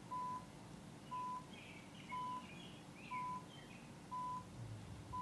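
Short, steady electronic beeps at one pitch from the Mac, about one a second, marking off PwnageTool's DFU-mode countdown of seconds while the iPhone's Home button is held.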